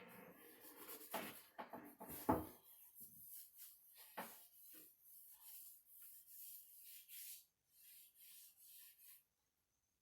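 Rubbing strokes over the wood of a cedar chest, about two a second, with a few knocks in the first half, the loudest just after two seconds in.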